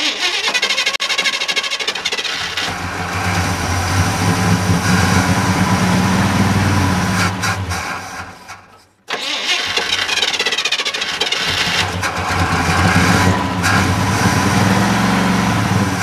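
1969 Chevy C10 pickup's engine running loudly, back to life after 15 years without a start. A little past halfway the sound fades and drops out for a moment, then the engine runs on.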